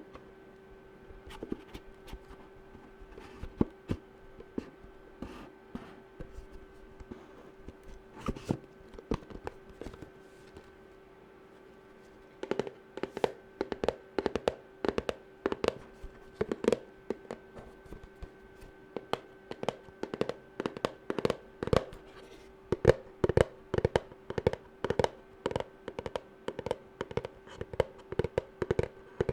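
Fingernails tapping on objects for ASMR: scattered, separate taps at first, then fast, rapid tapping several times a second from about twelve seconds in. A faint steady hum sits under it throughout.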